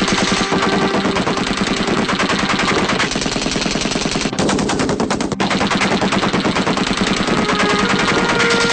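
Maxim machine gun firing long continuous bursts at a steady rate of about ten shots a second, with two brief breaks in the middle.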